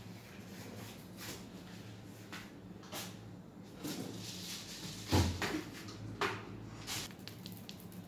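Scattered light knocks and clicks of handling on a worktop over a steady low electrical hum, with one louder thump about five seconds in.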